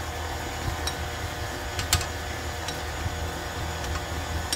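KitchenAid Artisan tilt-head stand mixer running steadily, its flat beater working a ground beef meatloaf mixture in the stainless steel bowl. A few sharp clicks sound over the motor hum, the loudest about two seconds in.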